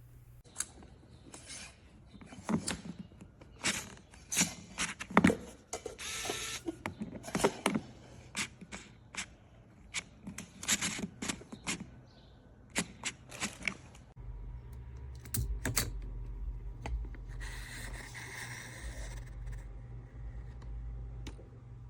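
Irregular sharp clicks and taps of small hard objects being handled, stopping about two-thirds of the way through. After that comes a steady low hum and rumble with a brief hiss.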